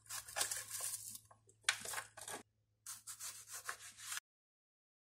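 Cut onion pieces and a knife scraping and rubbing on a wooden cutting board, in irregular scratchy strokes with one sharp knock. The sound cuts off abruptly about four seconds in.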